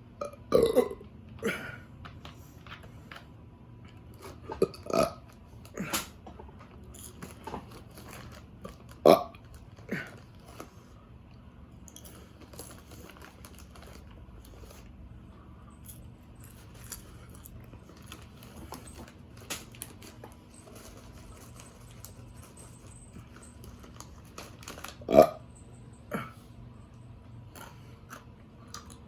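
A person burping several times, loud single burps spread out with long gaps, and smaller crunching clicks in between.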